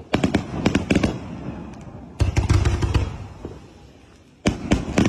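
Multi-shot fireworks cake firing aerial shells: three volleys of rapid sharp bangs about two seconds apart, each dying away before the next.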